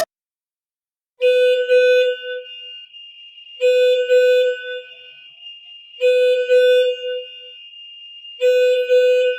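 Electronic warning alarm sounding a steady, reedy tone in repeated blasts, four of them about two and a half seconds apart, each about a second long and trailing off, over a faint steady high tone. It starts about a second in.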